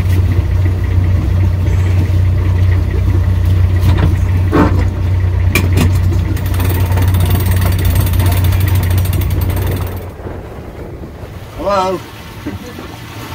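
A sailboat's inboard engine running steadily, cutting off about ten seconds in, with a few clicks from a cockpit sheet winch being cranked by hand. A brief voice follows near the end.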